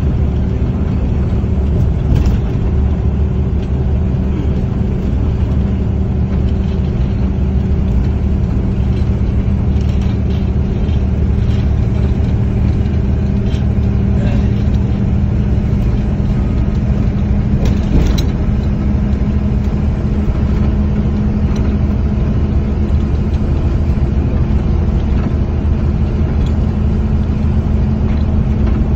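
Engine and road noise heard from inside a moving vehicle's cabin: a steady low drone with a constant hum, and a couple of brief knocks about two seconds in and near the middle.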